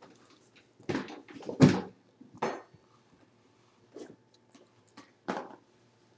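Scattered short knocks and rustles, about five of them a second or so apart, the loudest about a second and a half in, with near quiet between them.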